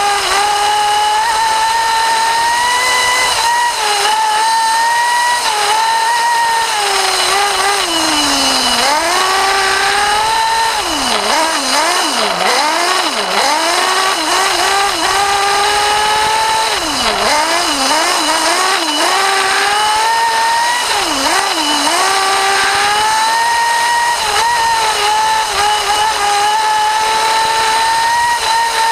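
Small nitro glow-plug engine of an RC buggy, heard close up from a camera mounted on the car, running at high revs with a steady high whine. Several times in the middle the pitch drops sharply as the throttle is lifted, then climbs back as the engine revs up again.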